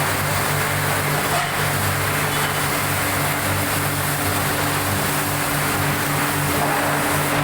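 Heavy machinery running steadily in a forging shop: a continuous low hum with a broad rushing noise over it, without distinct blows.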